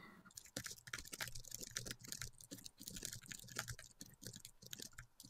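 Computer keyboard being typed on: a quick, uneven run of faint key clicks that thins out near the end.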